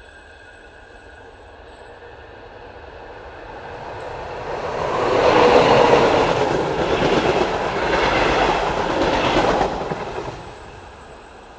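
N-scale model train, a Minitrix class 120 electric locomotive hauling measurement coaches, running along the layout's track past the microphone: it grows louder a few seconds in, is loudest in the middle, then fades away near the end.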